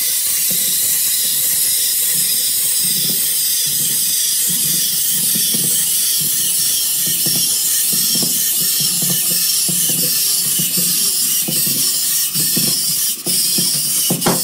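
Clockwork wind-up toys running on a tabletop: a steady high whirring hiss from their wound mechanisms, with irregular low knocks as they hop along and bump into foam letters.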